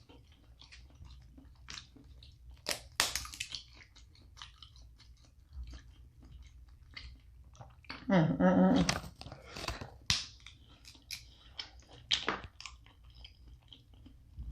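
Close-miked eating of a seafood boil: wet chewing and mouth smacking with scattered sharp clicks and crackles. A short voiced sound, like a hum of enjoyment, comes about eight seconds in.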